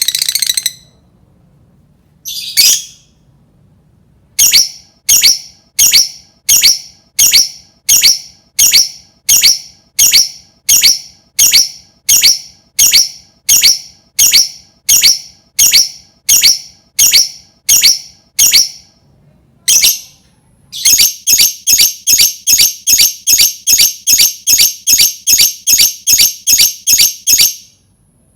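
Lovebird singing a long 'ngekek' string of shrill, evenly repeated calls, about one and a half a second. After a short pause near the middle, it speeds up to about three a second.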